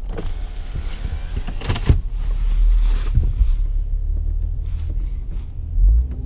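A car's engine running under load as the car, stuck in deep snow, tries to drive out. It makes a steady low rumble and is getting nowhere.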